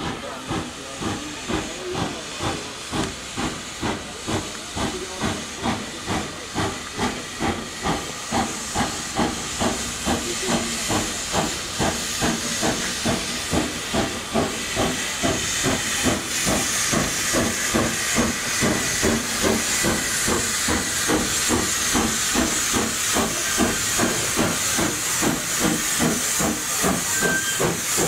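Saddle tank steam locomotive No. 15 'Earl David' working in under steam. Its exhaust beats about twice a second and grow louder as it draws near. Steam hisses from low at the front of the engine, likely the cylinder drain cocks, and the hiss strengthens through the second half.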